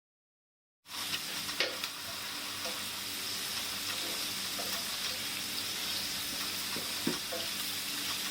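Complete silence for about the first second, then a steady sizzle of ghee heating in a frying pan, with a few light clicks.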